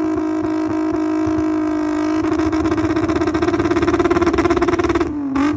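Stock 2.8-litre VW VR6 engine held at high revs, steady at first. About two seconds in it starts stuttering rapidly as it bounces off the rev limiter. Near the end the throttle closes with a sharp exhaust pop and the revs fall away.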